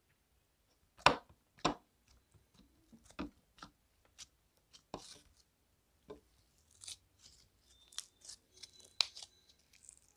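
Pink foam-bead slime (floam) being squeezed and kneaded by hand, giving irregular crackling clicks and squishes. The two loudest clicks come about a second in, and there is another sharp one near the end.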